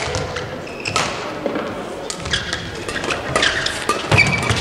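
Badminton doubles rally: sharp racket strikes on the shuttlecock, several in a row, with footsteps and shoe squeaks on the court floor.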